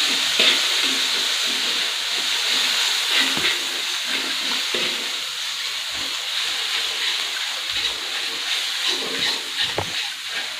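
Ground chili spice paste sizzling in hot oil in a wok, with short scrapes and taps of the spatula stirring it; the sizzle slowly dies down.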